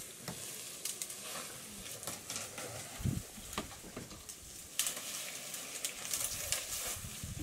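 African elephant bull pulling at and feeding on tree branches: dry leaves and twigs rustling and crackling with many small snaps, and a low thump about three seconds in and another near the end.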